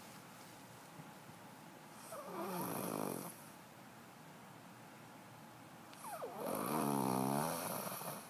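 A child snoring really loud: two long snores about four seconds apart, each with a wavering pitch. The second is longer and louder than the first, and there are quieter breaths between them.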